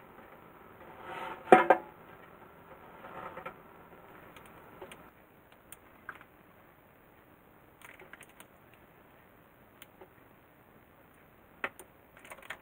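A metal bun pan clattering as it is handled and set down, with a sharp clang about a second and a half in and a smaller rattle around three seconds. Then only a few light clicks from plastic bottle caps and a measuring spoon.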